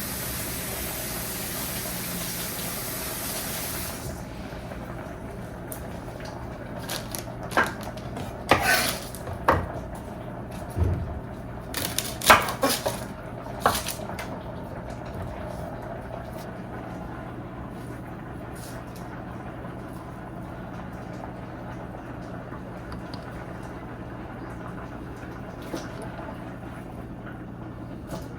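Water running from a kitchen tap, shut off about four seconds in, then a few clinks and knocks of dishes and utensils, over a steady low hum.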